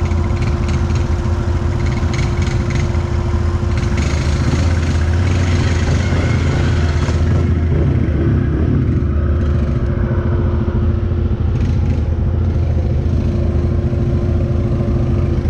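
Can-Am 1000 side-by-side's engine running at a steady speed, with rattles and clatter for several seconds in the first half.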